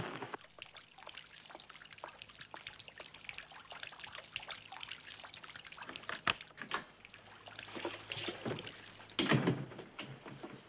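Faint trickling water over a low steady hum, with a sharp click about six seconds in and a brief louder noise about nine seconds in.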